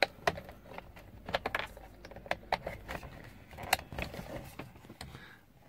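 Irregular small clicks and knocks of hard plastic as hands fit the wiring plug into the back of a Mini rev counter pod behind the steering column.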